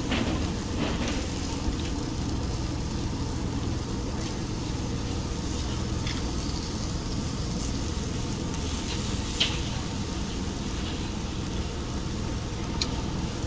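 Chicken skewers sizzling over a direct-fire grill, over a steady low hum, with a few light clicks.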